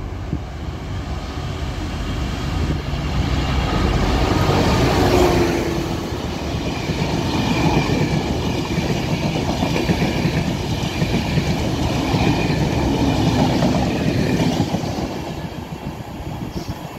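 NIR Class 201 diesel locomotive, a General Motors JT42HCW with an EMD two-stroke V12, powering past at speed, loudest about four to five seconds in. It is followed by the rumble and clickety-clack of the De Dietrich coaches running by, which fades near the end.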